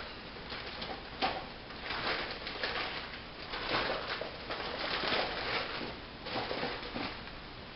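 Blind-bag toy packets crinkling and rustling as they are handled and picked through, an irregular run of crackles with a sharper one about a second in.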